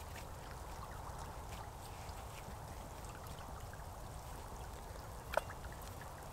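Small river flowing steadily, with faint scattered clicks and one short, louder sound about five seconds in.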